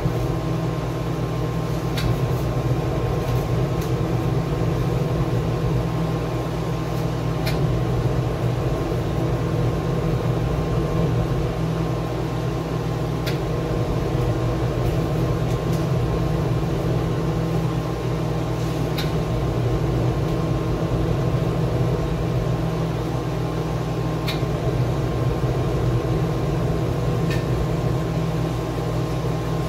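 Steady mechanical hum of a running motor or fan, holding several steady tones, with a faint click every few seconds.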